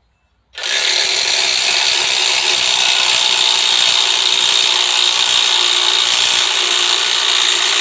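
Harbor Freight Warrior 18V cordless impact driver hammering steadily under load as it drives a lag bolt into pre-drilled wood. It starts suddenly about half a second in and keeps going.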